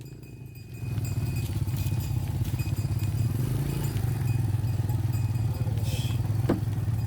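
A small engine running steadily, setting in about a second in, with a short rising squeak near the end.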